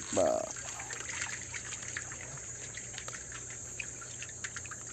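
Seawater trickling and lapping among rocks in a shallow rock pool, with small irregular splashes, over a steady high-pitched hum.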